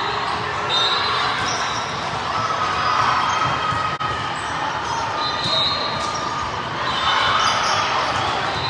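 Echoing crowd noise in a gym during a game: many voices and shouts over each other, with ball bounces and short high squeaks.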